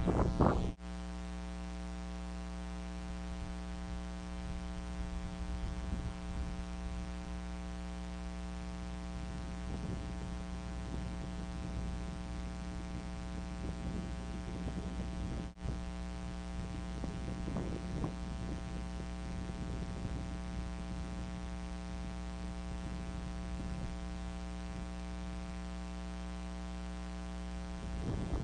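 A loud rushing flurry cuts off abruptly just under a second in. It leaves a steady electrical hum with many buzzing overtones, which drops out for an instant about halfway through.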